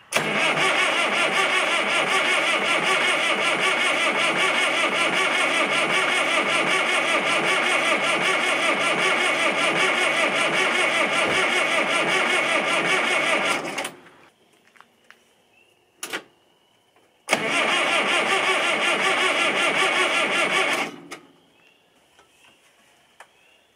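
Massey Ferguson 255 diesel engine turned over by its starter without firing: one long crank of about fourteen seconds, a sharp click, then a second crank of about four seconds. The engine is not catching, with air still in the fuel lines after the fuel system was bled with the hand pump.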